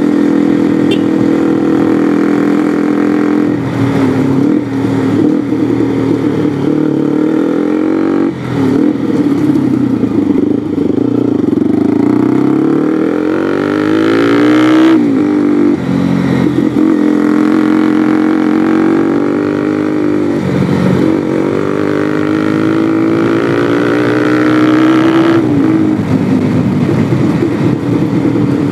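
Bajaj Pulsar NS200's single-cylinder engine running under way through a replica Akrapovic slip-on exhaust with the dB killer fitted. The revs climb and drop back sharply about four times.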